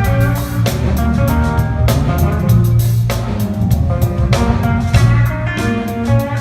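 Live band playing: electric guitar lead over drum kit, bass and piano, with sustained guitar notes and regular drum strokes.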